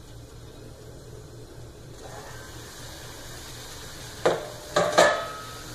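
Masala paste sizzling faintly in a pan, then three sharp metal clanks about four to five seconds in as the steel lid is taken off the pan.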